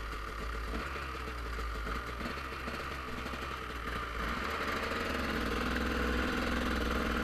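Dirt bike engines idling at an enduro start line, growing slightly louder over the last few seconds.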